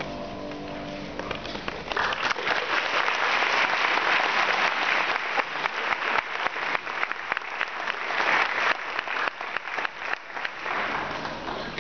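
Audience applauding in an auditorium. The clapping swells about two seconds in, as the last piano notes fade, and dies away near the end.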